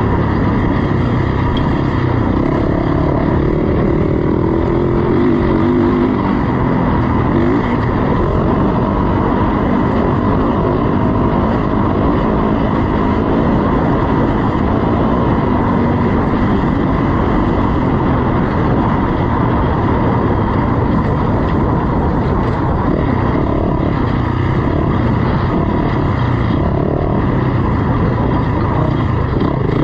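Dirt bike engine running and revving up and down over a steady, dense rumble.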